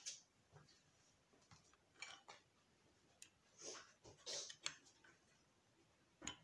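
Faint, scattered clicks and taps of clear plastic Lego plates and bricks being handled and pressed together on a wooden table, with a couple of brief rustling bursts around the middle.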